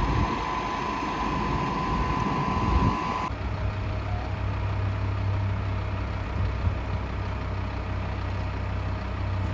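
Parked fire trucks' engines idling, a steady low hum. A steady high whine over it stops abruptly about three seconds in.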